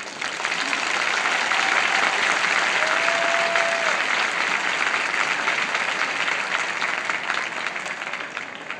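Stadium crowd applauding as the marching band's piece ends, swelling within the first second and fading toward the end.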